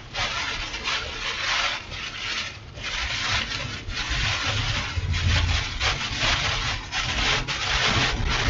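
Strong gusting wind and wind-driven rain beating on a moving vehicle, in irregular surges, over a low road rumble.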